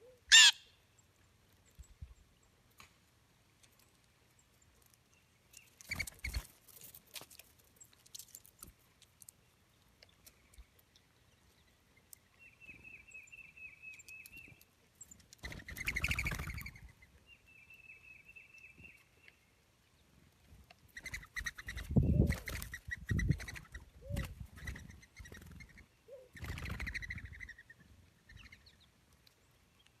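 Birds at a snowy seed platform: a blue jay's short, harsh downslurred call right at the start, then several bouts of fluttering wingbeats as mourning doves take off and land. A small songbird gives a short, even high trill twice in the middle.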